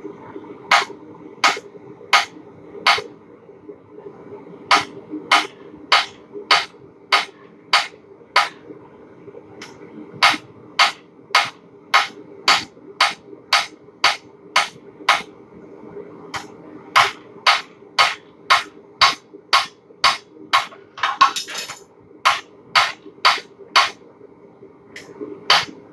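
Hammer blows on hot steel at an anvil, about one and a half strikes a second in runs with short pauses, as a small hook is forged by hand. A steady low hum runs underneath.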